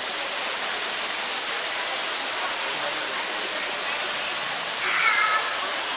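Steady rushing noise like running water, with a brief pitched sound, voice-like, about five seconds in.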